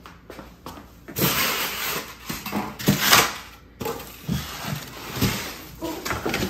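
Rustling and scraping of packing material, the foam sheet wrapping a boxed tabletop, cardboard and polystyrene blocks, being handled. It starts about a second in, with irregular knocks and scuffs in between.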